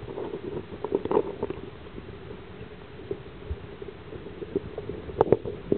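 Muffled underwater sound from a camera held just under the surface of shallow water: a steady low rumble of water moving against the housing, with scattered knocks and clicks and a cluster of sharper knocks near the end.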